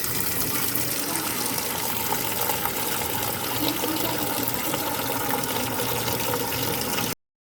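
Water running and splashing into the wash tub of a semi-automatic twin-tub washing machine as it fills, a steady gushing that cuts off suddenly near the end.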